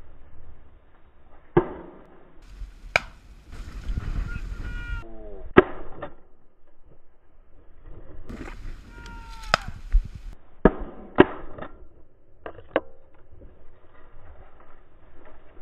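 Dry cornstalks rustling and scraping against a shotgun-mounted camera, with about seven sharp knocks and cracks scattered through. Twice there is a brief cry that falls in pitch.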